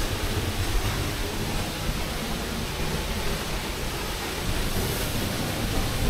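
Waterfall plunging into its pool close by, a constant rushing noise with a deep rumble underneath, heard from the path that runs behind the falling water.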